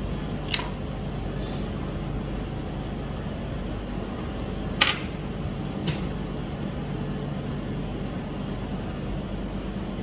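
Steady low mechanical hum in the room, with three brief light clicks: one about half a second in, and two close together around five to six seconds in.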